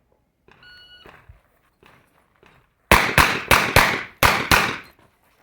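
Competition shot timer's start beep, a steady tone lasting a little under a second, then about two seconds later six revolver shots in quick succession, with a slightly longer pause before the last two.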